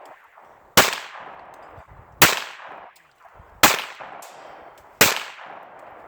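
Handgun fired four times in steady succession, about a shot every second and a half, each crack followed by an echoing tail. No Tannerite explosion follows: the pistol rounds hit the target without setting it off, since Tannerite needs a rifle round of .223 or higher.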